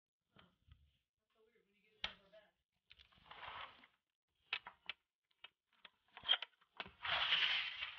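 Sliding patio doors being opened: clicks from the handle and latch, then the doors rolling along their tracks in two scraping runs, a short one about three seconds in and a longer, louder one near the end.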